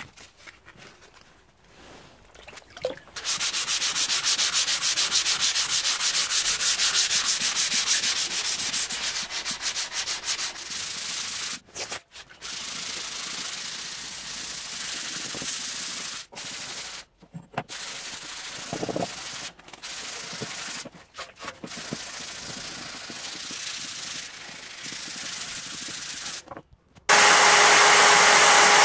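Sandpaper rubbed back and forth over the rusty steel blade of an antique machete in quick strokes, taking off the rust, with a few short pauses. Near the end an electric drill with a buffing wheel starts running, steady and much louder than the sanding.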